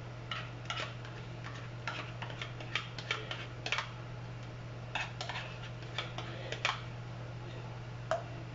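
Irregular light clicks and taps of a metal spoon scraping and knocking against a plastic measuring cup while scooping out thick pudding mixture, over a steady low hum.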